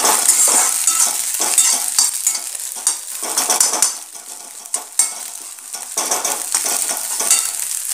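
Cabbage, capsicum and egg sizzling in hot oil in a kadhai while a steel spatula scrapes and taps against the pan in quick, irregular stir-fry strokes, with one sharper tap about five seconds in.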